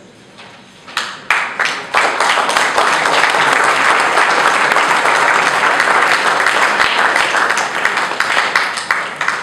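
Audience applauding. A few scattered claps come about a second in, then it swells into full, steady applause from about two seconds and fades near the end.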